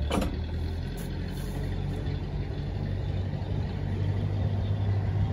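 1923 Leyland SG7 bus engine running at a steady low idle, picking up slightly near the end.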